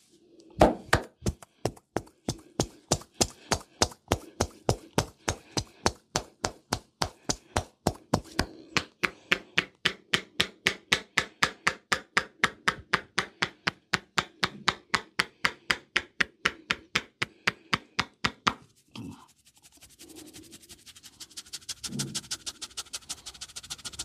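A barber's hands striking the head and shoulders in a percussive massage: steady, even chops at about three a second. Near the end the chops stop and give way to a quicker, softer patter.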